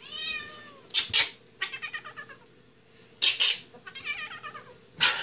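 A cat yowling in drawn-out, wavering calls, broken by short, loud hisses about a second in, around three seconds in and near the end.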